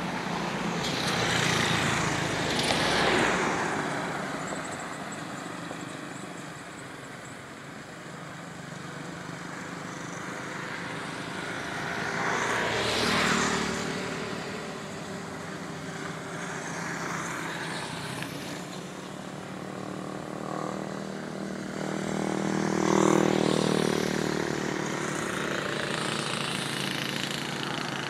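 Road traffic passing close by: three main vehicle pass-bys about ten seconds apart. Each swells and fades with a falling pitch as it goes past, and the last has a clear engine note sliding down.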